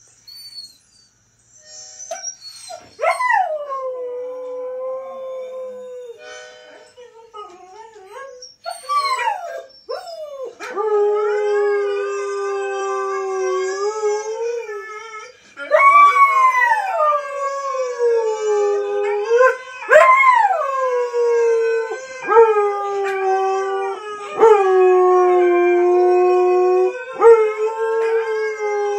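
A husky howling along with huskies howling from a television: long drawn-out howls, each swooping up and then settling on a held note, one after another from about three seconds in, louder from about halfway through.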